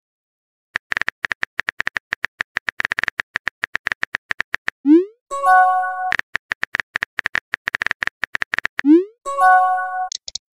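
Phone-keyboard typing clicks in two rapid runs of a few seconds each, each run ending in a short rising swoosh and a brief chime: the text-message app's sounds of typing and sending a message.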